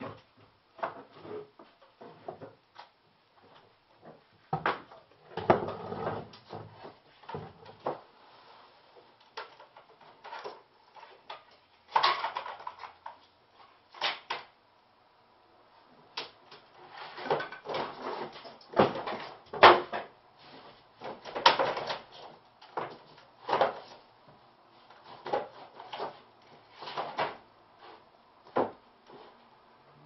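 Irregular knocks, clunks and rustling from things being handled and moved about, like drawers or cupboard doors, with a few louder clusters of bumps.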